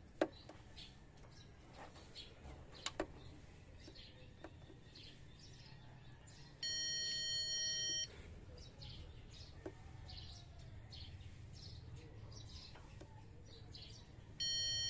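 A loud, steady electronic beep made of several pitches at once, held for about a second and a half in the middle and sounding again briefly near the end. Under it, faint bird chirping goes on throughout, with a couple of sharp clicks near the start.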